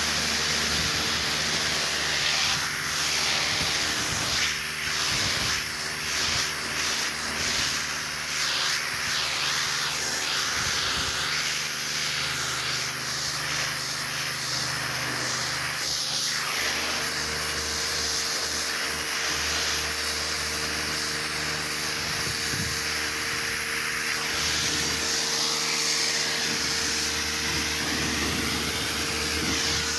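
Pressure washer running: the steady hum of its motor and pump under the loud hiss of the water jet, which rises and falls as the spray moves.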